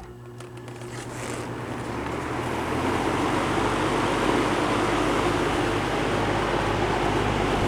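Vintage 24-inch Pencrest box fan switching on at the thermostat: a motor hum starts suddenly, and the rush of air builds over about three seconds as the blades spin up, then holds steady.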